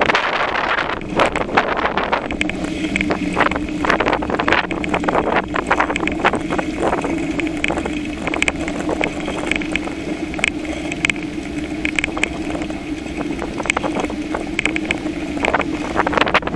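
A bicycle rolling along a paved path, heard from a camera mounted on it: irregular rattling and clicking from the bike and its metal front basket over a steady low hum, with wind buffeting the microphone.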